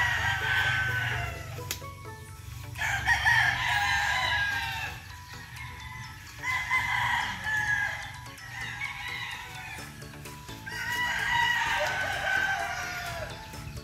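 Rooster crowing over and over, one long, wavering crow about every four seconds.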